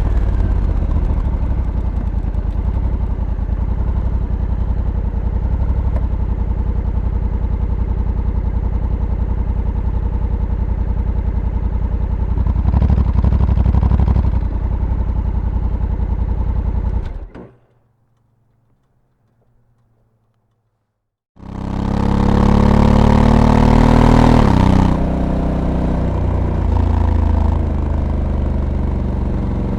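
Honda Africa Twin motorcycle's parallel-twin engine running on the move, dropping in pitch at first and then holding steady. The sound cuts out abruptly for about four seconds, then comes back with the engine revving up for a few seconds before it settles again.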